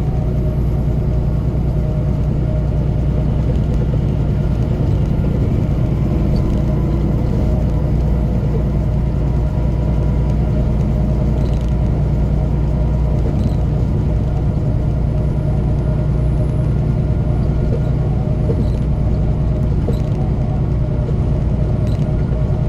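Semi truck cruising at highway speed, heard from inside the cab: a steady low engine drone with road and tyre noise.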